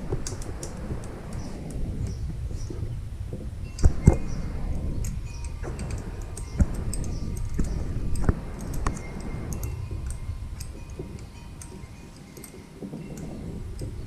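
Hand tools and engine parts being handled: scattered light clicks and a few sharper knocks over a low rumble. The loudest knocks come about four seconds in.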